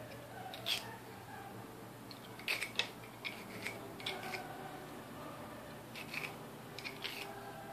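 Small flat hand file rasping across the edge of a small brass part, in short, irregular strokes that come singly or in quick pairs.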